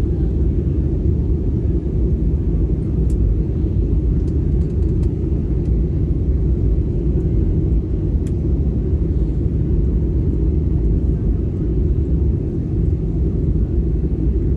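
Steady low rumble inside an Airbus A320 passenger cabin, with a couple of faint clicks.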